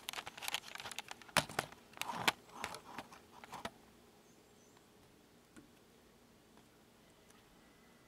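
Handling noise: a quick run of clicks, knocks and rustles as the camera is picked up, moved and set down on a table among plastic cups. It stops about three and a half seconds in, leaving faint room tone.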